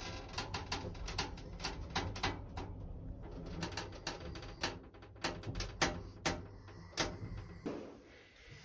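A pug grunting and snuffling amid irregular sharp clicks and taps, several a second at first, thinning out and fading near the end.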